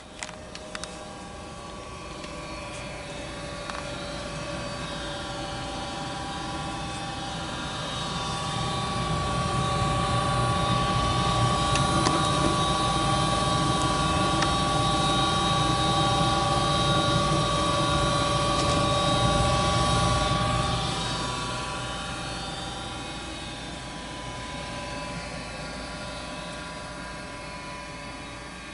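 Goodman 95% gas furnace starting up: a few clicks right at the start, then a steady motor hum with a whine that builds, is loudest for about ten seconds and then eases down about two-thirds of the way through.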